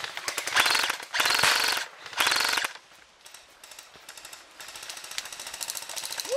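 Airsoft electric M14 rifle firing three short full-auto bursts, each a fast mechanical clatter with the gearbox motor whining. Softer rapid ticking follows through the rest.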